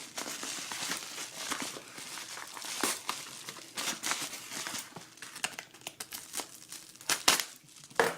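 Packaging being torn open and crumpled by hand: continuous crinkling and rustling with sharp crackles and tearing, loudest near the end.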